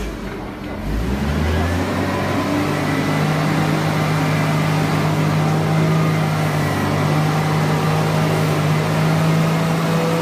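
A motor or engine running with a steady low hum. Its pitch rises over the first couple of seconds, then holds.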